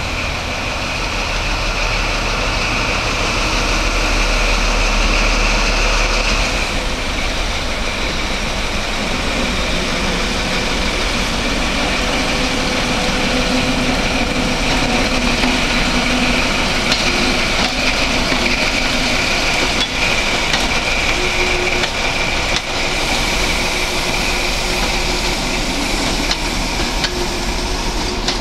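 Class 43 HST power car's Paxman VP185 diesel engine running as the train moves slowly past, with a steady high whine over the engine noise, followed by the rumble of the Mk3 coaches rolling by.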